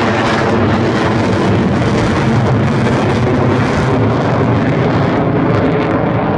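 Jet engine noise from an Avro Vulcan's four Rolls-Royce Olympus turbojets as the delta-wing bomber flies away, a loud steady rushing roar. Its top end fades after about five seconds as the aircraft recedes.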